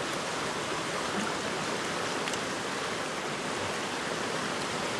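Fast-flowing river water rushing, a steady even noise.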